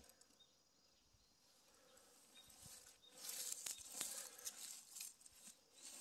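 Faint crackling rustle of dry pine needles and leaf litter being disturbed, starting about halfway through after a near-silent start.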